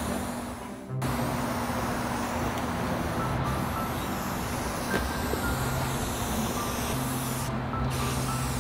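Aerosol spray-paint can hissing steadily as paint is sprayed along thin wooden screen-molding strips, with brief breaks between passes, about a third of the way in and near the end. A low steady hum runs underneath.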